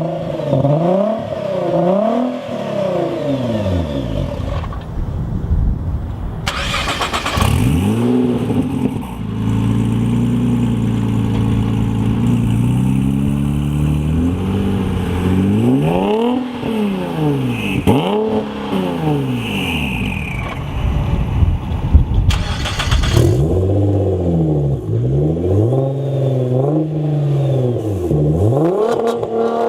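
Nissan GT-R engines at various power levels revving hard under acceleration, the pitch climbing and dropping back again and again through the gears. There are short bursts of rushing noise about seven seconds in and again around twenty-two seconds.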